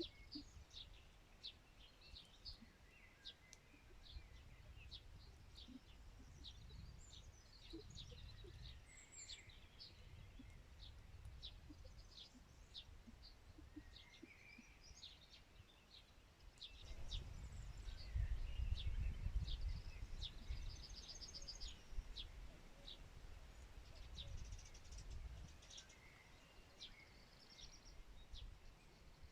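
Several small birds chirping, with many short high calls and a few quick trills throughout, over a low rumble that grows louder a little past halfway and then eases off.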